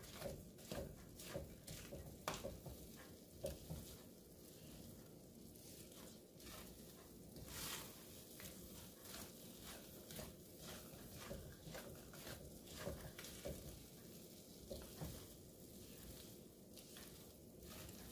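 Thick purple yam jam (ube halaya) being stirred in a pan: soft, irregular scrapes and taps of the utensil, sparser in the middle.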